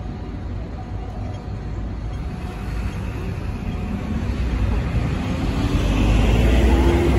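Low, steady rumble of motor traffic. A vehicle grows louder from about halfway through, with a steady engine hum.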